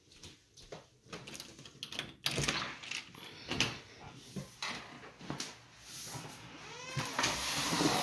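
Handling and moving-about noises: scattered knocks, clicks and rustles, with a squeaky scrape about seven seconds in and a sharp click at the very end.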